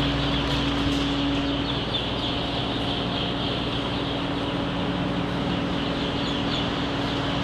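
Steady chorus of peeping from thousands of young pullet chicks in an aviary poultry house, over a steady low machine hum.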